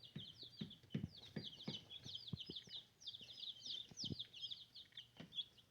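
A brood of young chickens peeping continuously, a dense chorus of short, high, downward chirps, with soft knocks and taps underneath.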